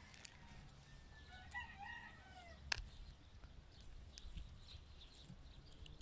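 A faint bird call, about a second long, with a falling, wavering pitch, about a second and a half in. It is followed by a single sharp click, over a steady low rumble.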